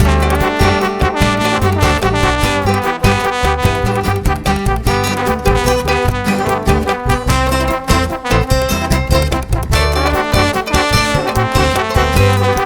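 Upbeat background music led by brass, trombone and trumpet, in a swing style with a steady beat.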